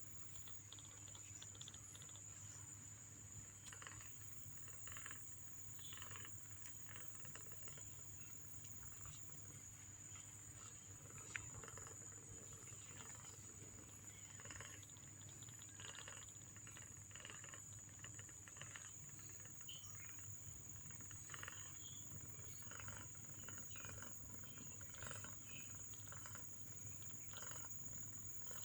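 Week-old kittens mewing faintly, many short cries at irregular intervals, over a steady high-pitched whine.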